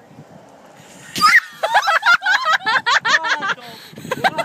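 A bucket of ice water dumped over a person's head, with a splash about a second in, followed by rapid high-pitched yelps and laughter at the shock of the cold.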